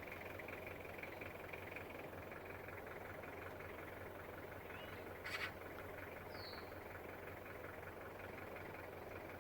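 Faint steady outdoor background noise, with a sharp click about five seconds in and a short high chirp about a second later.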